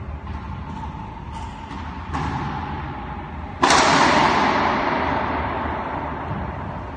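A racquetball struck hard by a racquet on a pinch shot about three and a half seconds in: one loud crack that rings and echoes round the enclosed court for about two seconds. Before it come a few lighter taps of the ball bouncing on the hardwood floor.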